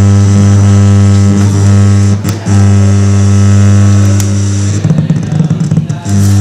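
Light picked up by a solar cell and played through an amplifier and speakers, giving a loud, steady electrical hum with a stack of overtones: the flicker of mains-powered light turned into sound. It cuts out briefly with a click about two seconds in. Near the end it breaks into crackles and pops for about a second as the LED is moved over the cell, then the hum returns.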